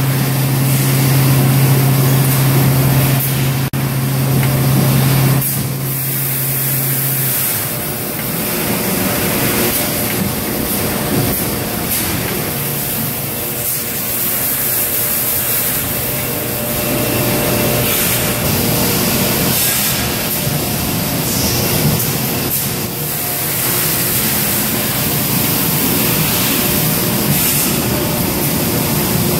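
Steady machinery noise from an automated bottle palletizing line, with an even hiss over it. A loud low hum runs under it and stops about seven seconds in.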